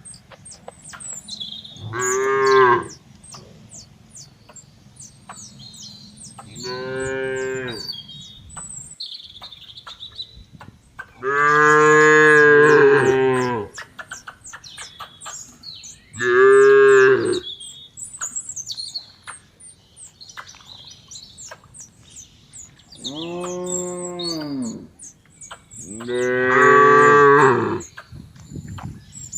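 Cattle mooing: six long, drawn-out moos at varying pitch, the longest and loudest near the middle, with small birds chirping between them.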